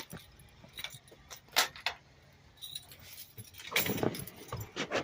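Keys jangling, with scattered light clicks and knocks of handling and a louder clatter about four seconds in.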